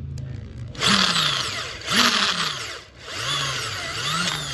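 Power drill boring holes through a motorcycle's metal clutch basket to lighten it, the bit biting and the motor pitch rising and falling under load. It drills in two long runs, with a brief let-up just before the three-second mark.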